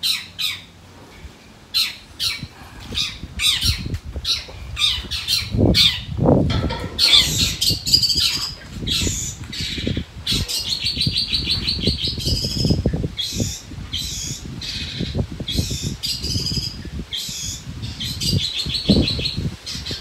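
A young long-tailed shrike (cendet) singing just after its cage cover comes off: a run of harsh, sharp call notes and rapid chattering trills that grows denser after the first few seconds, with low rustling and knocks underneath. The song is still unpolished and not yet forceful, as is normal for a young bird.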